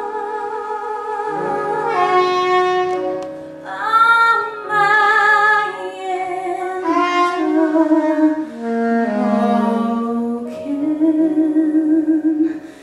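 Small jazz group playing live: a soprano saxophone melody over grand piano accompaniment, with a woman singing at times.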